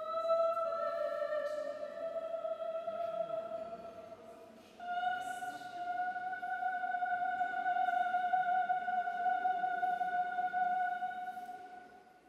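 A high soprano voice holding long, steady notes, with no words. The opening note moves down to a lower pitch; about five seconds in a higher note begins and is held for some seven seconds before fading away near the end.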